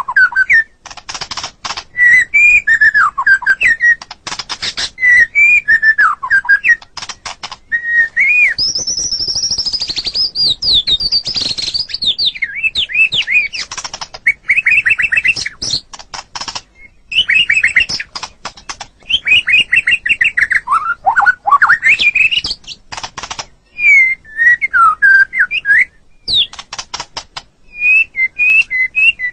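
White-rumped shama (murai batu) singing a varied song: whistled phrases that glide up and down, rapid trilled runs and sharp clicking notes, in bursts with brief pauses.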